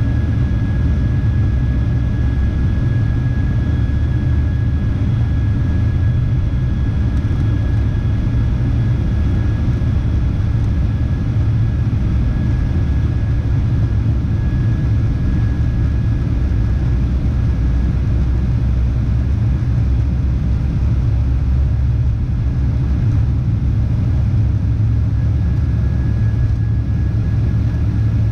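Boeing 737-800 heard from inside the cabin during its takeoff roll, its CFM56-7B engines at takeoff thrust. A loud, steady rumble has a thin, steady high whine over it.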